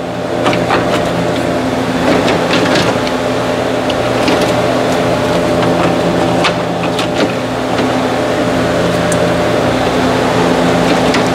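A steady mechanical hum runs under scattered clicks and knocks of car parts being handled as the radiator fan assembly is moved out of the way.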